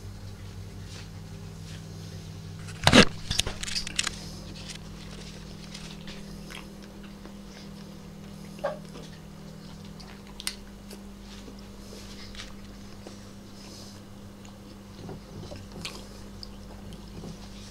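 Two cats eating pieces of chicken from bowls, with small chewing and clicking sounds. A loud knock and clatter about three seconds in, over a steady low hum, part of which stops about ten seconds in.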